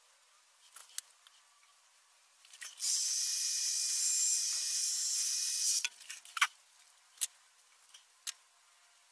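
A steady, even hiss lasting about three seconds that stops abruptly, with a few small clicks and taps before and after it.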